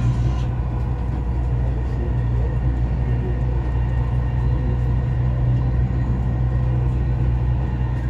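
Dubai Metro train running, heard from inside the carriage: a steady low rumble and hum with faint steady tones above it.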